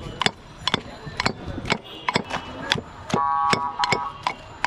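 Knife chopping raw fruit on a board for bhorta, a steady run of sharp chops at about two a second. A brief steady tone cuts in a little past three seconds.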